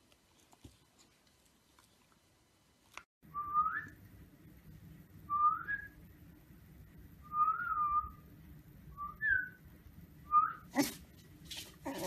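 A person whistling five short notes, each a quick rising or rise-and-fall glide, about two seconds apart and starting about three seconds in. Near the end comes a brief flurry of knocks and scrapes.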